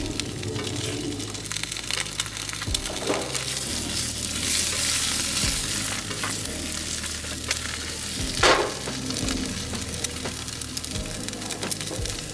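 Egg frying in butter in a nonstick pan, a steady sizzle and crackle, with a few short knocks and taps, the loudest about two-thirds of the way through.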